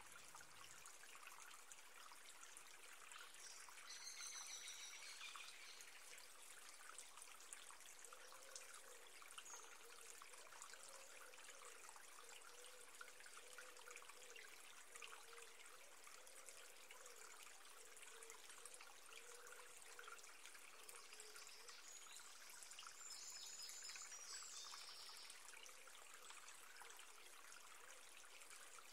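Faint, steady trickle of running water, like a small stream, with brief high chirps twice: about four seconds in and again after about twenty-three seconds.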